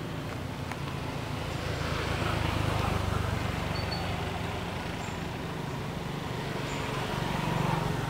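Engine noise of passing road traffic: a continuous low rumble that swells about two seconds in and again near the end.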